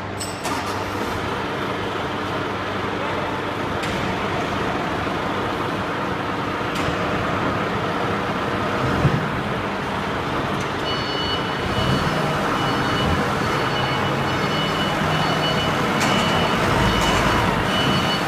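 A heavy vehicle's engine running steadily, with a reversing alarm beeping in repeated high tones from about two-thirds of the way in.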